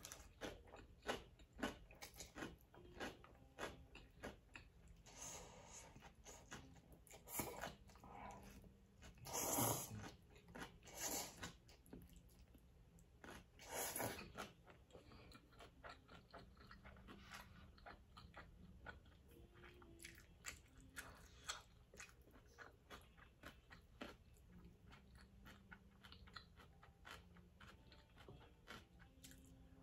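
Close-up sounds of a person eating instant ramen noodles: steady small chewing and wet mouth clicks, with a few longer slurps of noodles, the loudest about ten seconds in and others a second and four seconds later.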